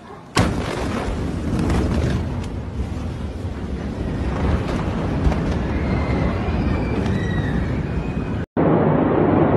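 Blast wave of a huge ammonium nitrate explosion reaching the recording phone. A sudden loud boom comes about half a second in, followed by several seconds of continuous rushing, rumbling noise with scattered cracks. It cuts off abruptly near the end.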